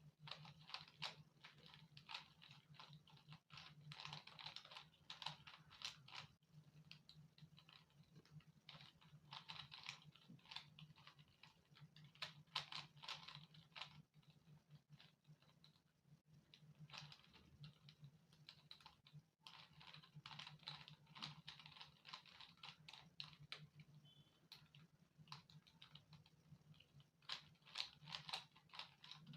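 Faint, rapid plastic clicking of a Rubik's cube being turned, the layers snapping in quick spurts with brief pauses. A steady low hum runs underneath.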